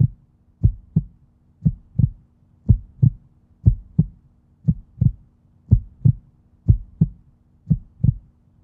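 A beat of paired low thumps, like a heartbeat, one pair about every second, over a faint steady hum.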